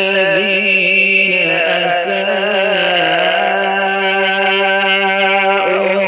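Quran recitation in the slow, melodic tilawat style: a single voice holding one long drawn-out note, shifting pitch about a second and a half in and again near the end.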